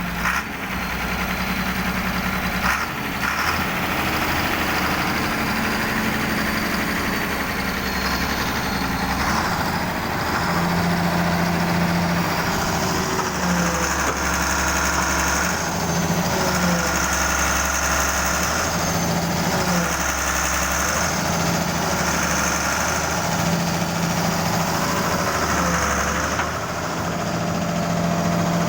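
Hitachi excavator's diesel engine running steadily, its low note swelling and easing every couple of seconds as the load comes and goes, with a faint whine sliding up and down over it. There are a couple of knocks at the start.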